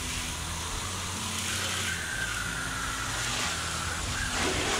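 Garden hose spray nozzle rinsing a boat hull: a steady hiss of water spraying against the hull and spattering onto the driveway.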